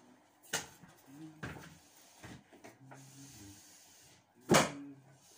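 Several sharp knocks and clatters from a worker climbing onto a stepladder and handling hand tools, the loudest a single bang about four and a half seconds in.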